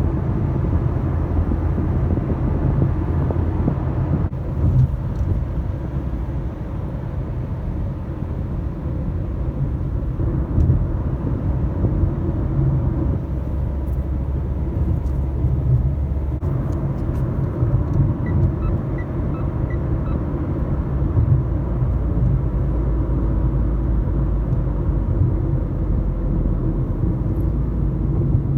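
Car engine and road noise heard inside a moving car's cabin, a steady low rumble that shifts a little in pitch as the car changes speed. About two-thirds of the way in come four short, faint beeps.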